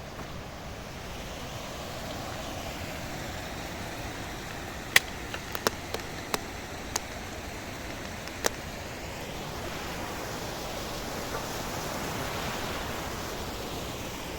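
Steady rushing noise, with a quick run of about seven sharp clicks or snaps around the middle, the first the loudest.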